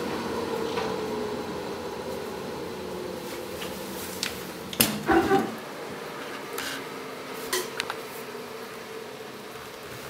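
Eudora Luftikus washer-dryer winding down with a faint hum that slowly fades away. About five seconds in, the door latch clicks and the door clunks open, followed by a few lighter knocks.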